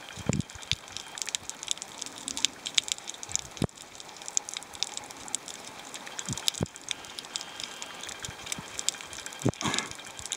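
Underwater crackle on a coral reef: a dense, continuous patter of tiny clicks and pops, with a few low thumps scattered through.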